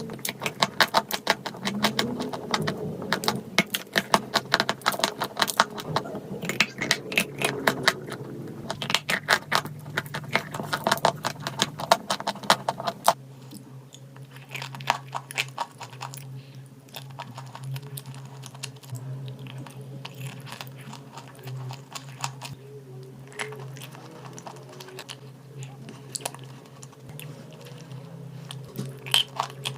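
Dry chalk clay crunching, with a dense run of rapid, crisp crackles that stops abruptly about 13 seconds in, followed by sparser, quieter crackles. A steady low hum runs underneath.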